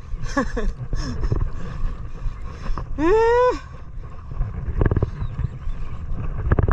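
Steady low rumble of a trolling boat's engine, with wind on the microphone. About three seconds in a person gives a loud whoop that rises in pitch and holds briefly, after a shorter falling call near the start.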